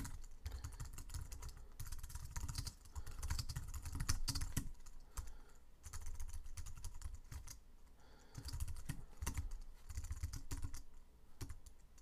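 Typing on a computer keyboard: irregular runs of keystrokes broken by a few short pauses.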